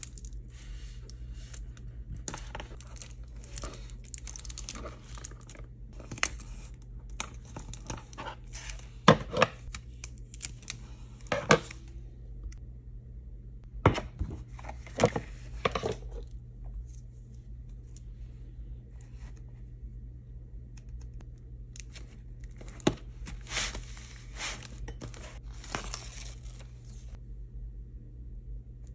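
Hands working with tape and a thin foil transfer sheet on a craft table: tape being peeled and torn, the foil crinkling, and a few sharp taps of hard plastic on the tabletop. The sounds come in bursts with quiet pauses between.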